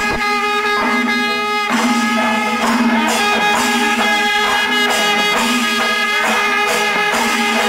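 Instrumental background music over a sustained drone, with a run of notes changing about every second.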